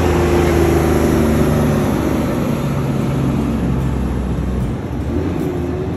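Heavy-haulage prime mover's Cummins diesel engine pulling an oversize low-loader past at close range, its deep engine note and the rumble of many tyres slowly fading as it moves away.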